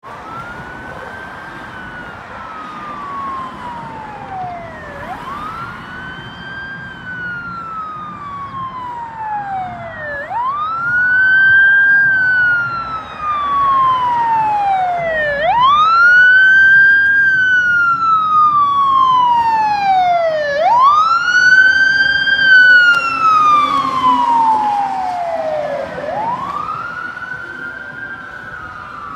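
Fire engine's siren on a slow wail, each cycle sweeping up quickly and falling slowly, repeating about every five seconds. It grows loud as the engine comes past and fades near the end, over the noise of street traffic.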